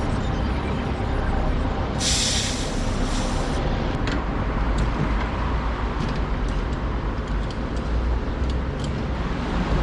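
A steady low mechanical rumble, with a short burst of air hissing about two seconds in and a few light clicks afterwards.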